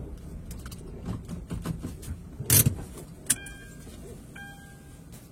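Vehicle sounds with a low rumble, a few clicks and one loud thump like a car door shutting, then an electronic beep repeating about once a second.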